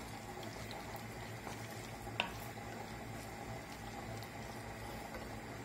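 Creamy chicken stroganoff simmering with a low bubbling in an aluminium pressure-cooker pot, stirred with a spoon at first. There is a single sharp click about two seconds in.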